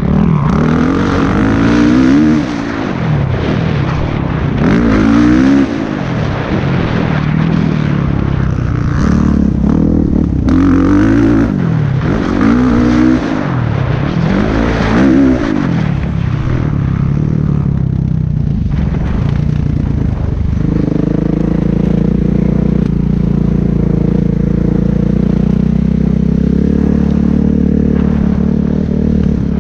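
Kawasaki KX450F four-stroke single-cylinder motocross engine heard from a helmet-mounted camera, revving up and down over and over as the throttle is opened and closed around the track. About two-thirds of the way through it settles into a steady, even note.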